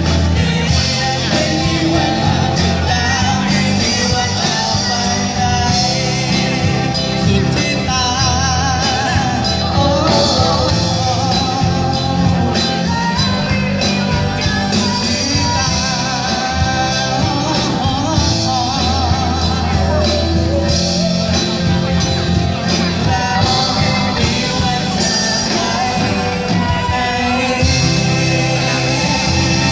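Live rock band playing: a man and a woman singing into microphones over drums, electric guitar and bass guitar, with a steady beat.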